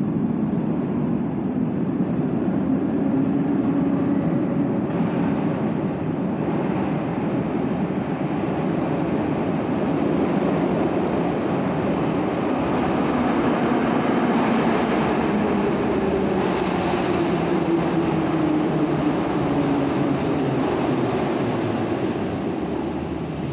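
Metro train pulling into an underground station: a steady rumble of wheels and running gear, with a motor whine that falls in pitch as the train slows, and brief high squeals near the end as it brakes.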